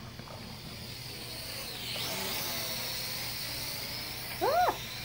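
A small quadcopter drone flies close overhead, its propellers giving a steady high whine that dips in pitch and grows louder about two seconds in. Near the end a dog gives a short, high yelp that rises and falls.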